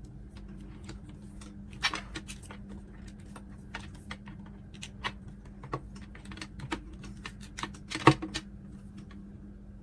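Irregular light clicks and taps from handling the multimeter probes and the laptop adapter's plug while looking for the output voltage. Two louder knocks come about two seconds in and about eight seconds in, over a steady low hum.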